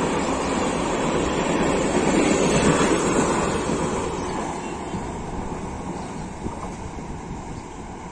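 Passenger train coaches running past on the far track, a steady rumble of wheels on rail that fades from about four seconds in as the train draws away.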